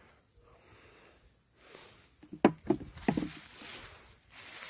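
Hands rustling and scraping through hay mulch and loose soil while digging for potatoes. It starts about two seconds in, with a sharp crackle, and carries on as a hissy rustling.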